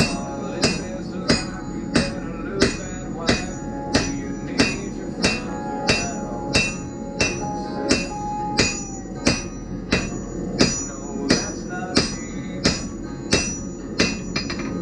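Hand hammer striking a glowing Damascus steel billet on an anvil in a steady rhythm of about one and a half blows a second, each blow with a short metallic ring. The steel is being drawn out thinner.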